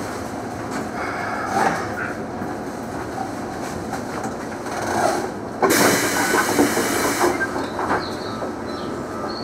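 Keikyu 2000-series train drawing to a stop, its running noise settling to a steady hum. About halfway through comes a sharp burst of compressed-air hiss lasting about a second and a half.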